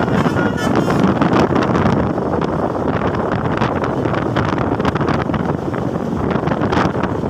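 Telolet musical bus horn sounding a few short notes in the first second, then steady wind noise on the microphone with vehicle noise.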